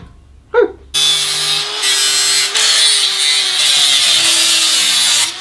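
Angle grinder cutting through the sheet-metal body of a portable gas stove. It starts about a second in and runs steadily as a motor whine over a harsh grinding hiss, dipping briefly just before the end.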